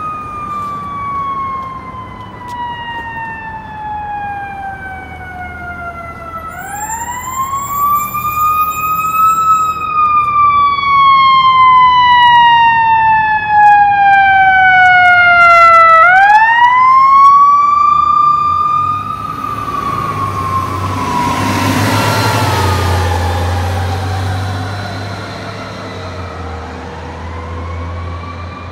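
Fire engine siren wailing: each cycle falls slowly in pitch for about six seconds, then sweeps quickly back up, and it gets louder toward the middle. In the second half a heavy vehicle's engine rumble and road noise rise and pass while the siren fades.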